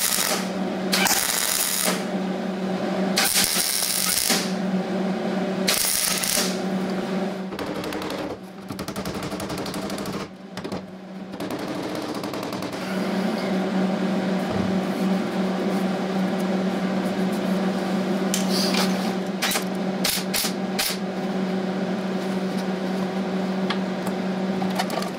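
MIG welder stitch-welding a sheet-steel patch in short crackling bursts of about a second each, followed by a quick run of sharp hammer taps planishing the welds. A steady low hum runs underneath.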